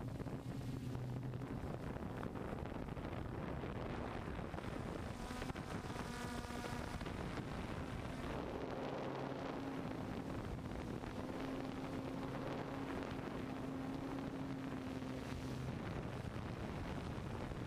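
A DJI F550 hexcopter's six electric motors and propellers whirring in flight, heard from the onboard GoPro with a steady rush of wind over its microphone. The motor hum shifts slightly in pitch as the craft manoeuvres.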